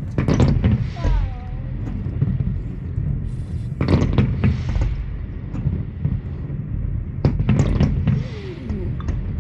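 Fireworks bursting, heard muffled from indoors: three clusters of cracks and pops, just after the start, around four seconds in and around seven to eight seconds in, over a steady low rumble.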